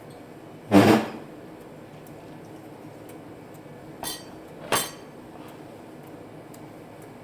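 Tableware knocking during a meal: one loud clatter about a second in, then two shorter clinks a little over half a second apart near the middle.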